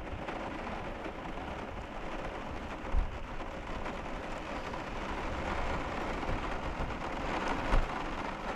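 Steady heavy rain falling on the RV's window and around the camper, an even hiss of drops. Two dull low thumps stand out, about three seconds in and near the end.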